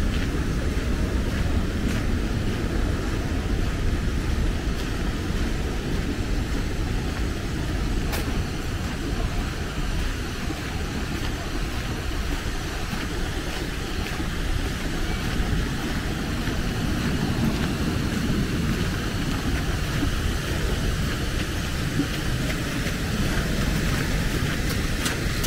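Steady outdoor city ambience: a continuous low rumble of road traffic under an even hiss of rain, with a few faint ticks.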